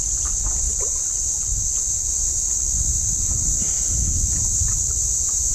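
Steady high-pitched drone of insects, unbroken throughout, with a low rumble underneath.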